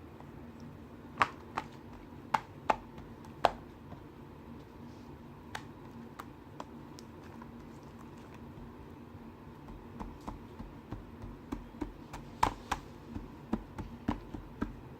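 Irregular sharp taps, a handful of loud ones in the first few seconds, then a quicker scatter of lighter ones over the last five seconds, over a low steady room hum.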